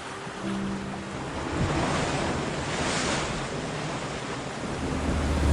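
Ocean waves washing onto a shore, swelling to a broad crash about two to three seconds in, with faint low music notes underneath near the start.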